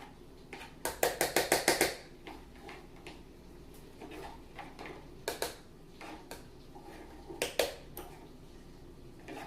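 A kitchen utensil knocking against a mixing bowl: a quick run of about eight taps a second in, then a few scattered knocks.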